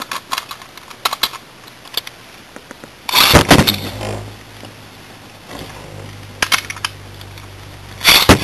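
Beyblade spinning tops launched by a string launcher, then spinning with a steady low hum in a plastic stadium, with sharp clacks as the metal tops strike each other. A few light clicks come before the launch, and there is a loud rattle of collision near the end.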